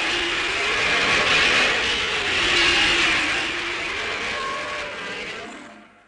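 Film sound effect: a loud, dense mechanical-sounding rumble and hiss whose pitch slowly rises and falls twice, fading out over the last second.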